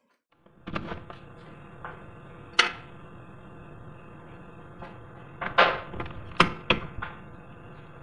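Metal lever door handle and backplate knocking and clinking against the door as they are fitted. There are several sharp knocks, each ringing briefly: one about two and a half seconds in, and a quick cluster of three or four near the end.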